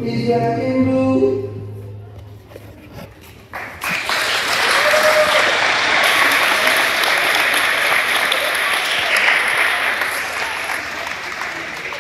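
The last notes of a song with singing fade out, then about four seconds in an audience breaks into applause that slowly dies down toward the end.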